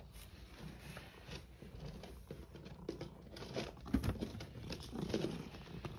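Rustling and crinkling of cat-food packaging, with scattered light taps and clicks as the food is handled. The taps come thicker and louder about four seconds in.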